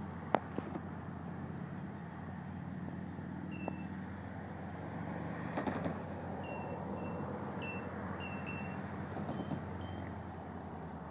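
Distant EMD GP40 diesel locomotive, a 16-cylinder two-stroke, running at low speed as it approaches: a steady low engine hum. A sharp click sounds about half a second in.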